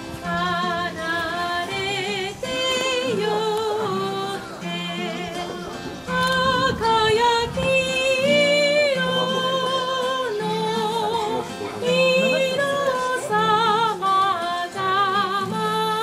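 A woman singing a melody with marked vibrato, accompanied by an acoustic guitar.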